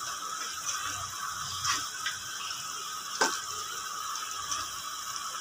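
Pot of gravy simmering on a gas stove: a steady hiss with a few soft pops and clicks, the sharpest about three seconds in.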